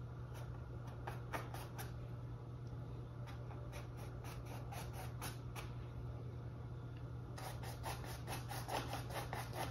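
Paintbrush bristles rubbing across canvas in quick short strokes as acrylic fur is painted, a few strokes a second, with a faster, denser run of strokes in the last couple of seconds.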